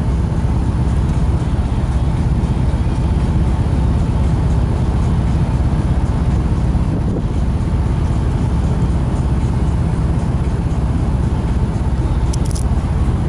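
Steady low rumble of a Moskva-type river excursion boat's diesel engine running under way.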